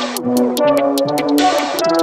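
Electronic background music: sustained synth notes over a quick, steady ticking beat of about four ticks a second.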